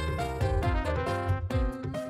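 Theme music: a melody in held notes over a regular drum beat.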